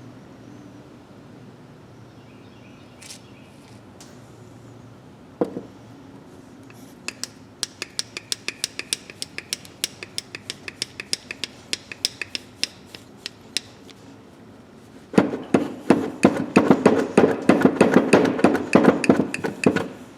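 Rusty steel needle-nose pliers being worked open and closed at a stiff pivot loosened with WD-40, the jaws clicking at about four a second. About fifteen seconds in, the working gets faster and louder, with scraping in the joint, as the rusted pivot frees up.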